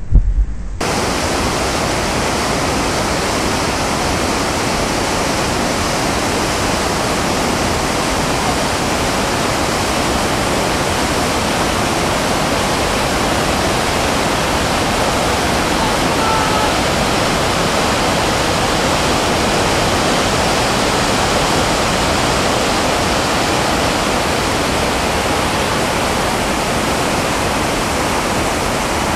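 Whitewater rapids rushing loudly and steadily, an even unbroken noise of churning river water. A moment of louder splashing comes right at the start.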